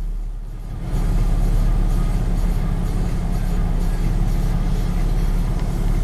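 A steady low rumble that swells up suddenly about a second in and then holds level.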